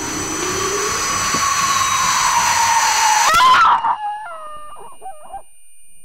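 A banshee's piercing, shrieking wail, growing louder over about three and a half seconds and then cutting off suddenly. A thin, steady high ringing, like ringing ears, follows, with a few short, wavering cries of pain.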